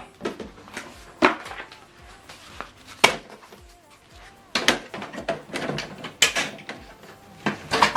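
Paper being taken out of and fed into the input tray of an HP DeskJet 4100-series inkjet printer: a series of scattered plastic clicks and knocks with paper rustling, the sharpest click about three seconds in.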